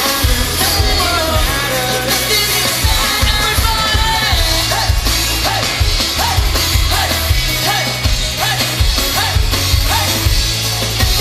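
Live pop-rock band playing loudly over a concert PA, with heavy drums and bass under a repeating melodic line and no lyrics.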